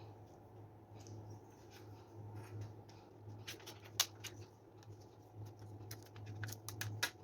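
A steady low electrical hum with scattered light clicks and ticks, which come more often in the second half; the sharpest click falls about four seconds in.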